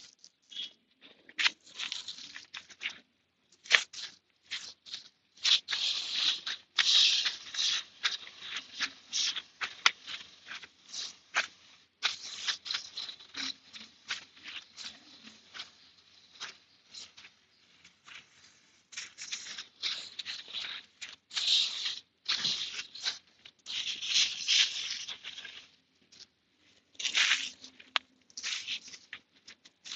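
Aerosol chain cleaner being sprayed onto a motorcycle drive chain, in many short hissing bursts with scratchy scrubbing strokes between them. A few longer sprays come about six seconds in and again near the end.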